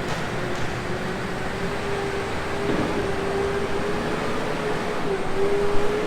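John Deere 6155R tractor running, heard from inside the cab: a steady engine and drivetrain noise with a held whine that rises slightly in pitch.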